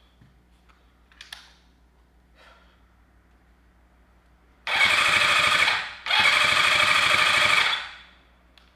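Electric starter cranking a freshly overhauled Kawasaki Zephyr air-cooled inline-four motorcycle engine in two bursts, the second a little longer, a rapid mechanical clatter without the engine catching. Before them, a few faint clicks.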